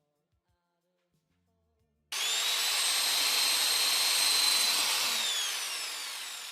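A high-speed electric power-tool motor switches on suddenly about two seconds in and runs with a steady high whine. Near the end it is released and winds down, its whine falling in pitch and fading.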